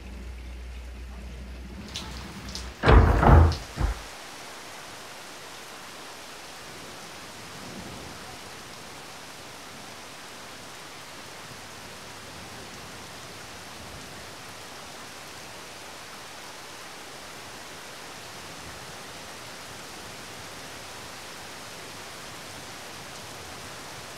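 Door sound effect about three seconds in: two loud thuds and a smaller one as a door is opened, after a low hum. Then a steady rain-like hiss of outdoor ambience.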